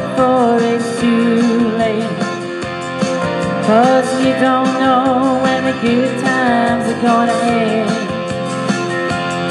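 Instrumental break of a song: guitar and backing band under a wavering melodic lead line, with no lyrics sung.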